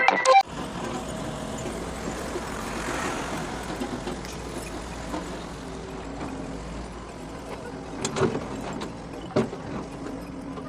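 Doosan DX140 excavator running steadily, its engine and hydraulics a continuous low hum, with sharp knocks about eight and nine and a half seconds in.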